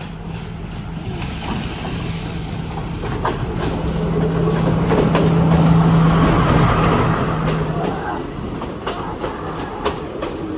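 Passenger train passing: the locomotive's engine drone swells to a peak about six seconds in and then falls away, with the wheels clacking over the rail joints.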